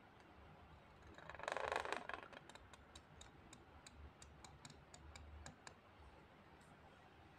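Calligraphy pen scratching across paper in one stroke about a second in, followed by a run of faint quick clicks, about four a second, for some three seconds as the nib works the letter.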